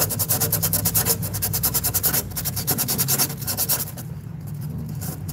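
Sandpaper rubbed quickly back and forth on a copper refrigerant tube, a rapid run of scratchy strokes that eases briefly about four seconds in. The tube is being cleaned to bare shiny metal before it is brazed. A steady low hum runs underneath.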